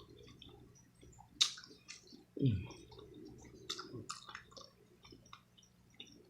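Close-miked chewing of a mouthful of seafood boil: soft wet smacking with scattered sharp clicks, and one short low sound falling in pitch about two and a half seconds in.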